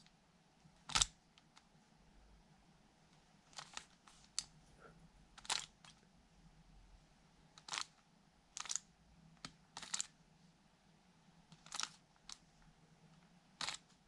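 A 3x3 plastic speedcube's layers turned one move at a time with finger flicks, each turn a short, sharp click, about ten clicks spaced roughly a second apart: a slow run-through of the M-slice U-perm (M′ M′ U M U′ U′ M′ U M′ M′).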